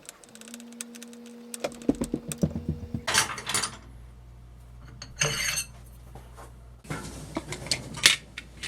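Clinks and knocks of metal parts and tools being handled in a machine shop, with a few short rustling bursts. A low steady hum sets in about three seconds in.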